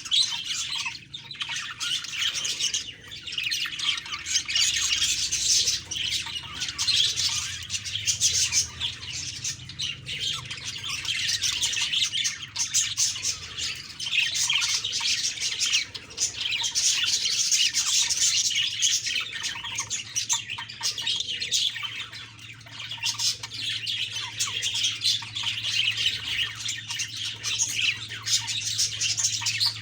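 Budgerigars chattering, with rapid chirps, warbles and squawks running on continuously in waves, over a faint steady low hum.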